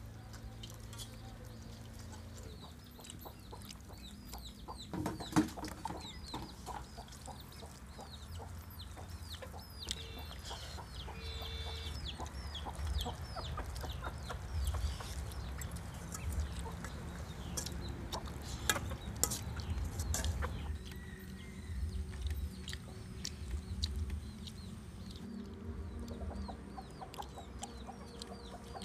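Domestic chickens clucking, with small birds chirping repeatedly throughout and a few sharp knocks, the loudest about five seconds in.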